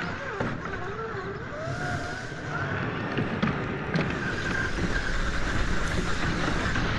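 Electric motor drive of a Traxxas TRX-4 1/10-scale RC crawler whining, its pitch rising and falling with the throttle, over gritty noise from the tyres churning dry dirt. About four seconds in it becomes louder and steadier.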